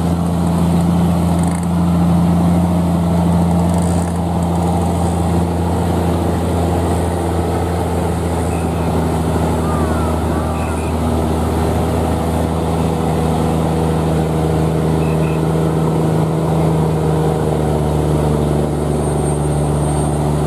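Scania P380 truck's six-cylinder diesel engine pulling steadily under heavy load up a climb, hauling a Kato SR-250 crane on a lowbed trailer. The engine holds a steady, even pitch throughout.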